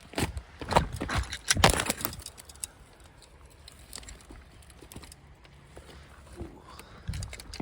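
Footsteps crunching and thudding through dry leaves and brush: a quick run of heavy steps in the first two seconds, then fainter scattered steps.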